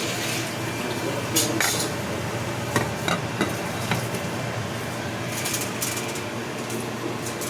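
Scattered clinks and knocks of dishes and utensils being handled, over a steady low hum.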